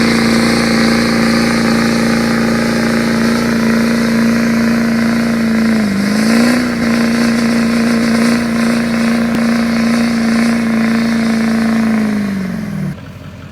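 Duramax LML 6.6-litre V8 turbo-diesel held at steady high revs during a burnout, with a brief dip in revs about halfway through. The revs fall away near the end and the sound cuts off suddenly.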